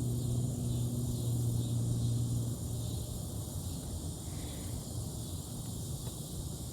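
Steady low hum of a distant engine that stops about two and a half seconds in, over a steady high chirring of evening insects.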